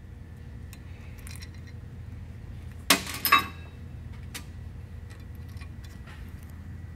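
A quick cluster of about three sharp metallic clinks about three seconds in: metal parts knocking together as an electric motor is fitted up against a steel pump bracket. A steady low hum runs underneath.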